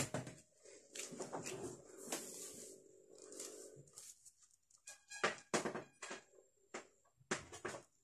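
Quiet room noise, then a run of light, sharp knocks and clicks in the second half from handling the TV set.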